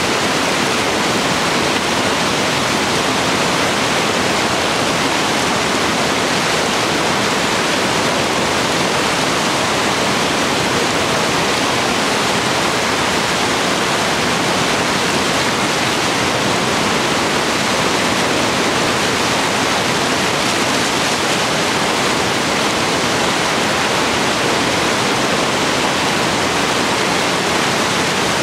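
Whitewater rapids pouring over and around large boulders: a steady, loud rush of water that does not let up.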